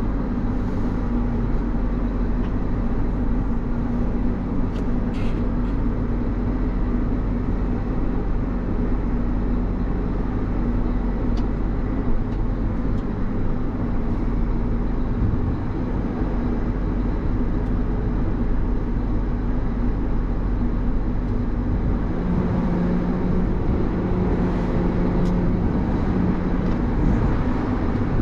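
John Deere 8270R tractor's diesel engine running steadily as the tractor is driven, with a shift in the engine note near the end.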